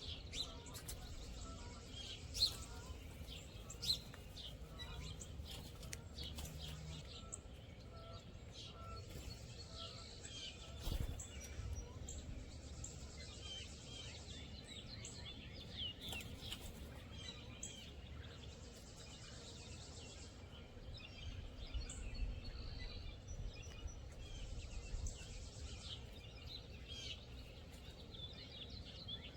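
Wild songbirds chirping and calling on and off, several short trills and tweets overlapping, over a steady low outdoor rumble. Two sharp clicks stand out a few seconds in.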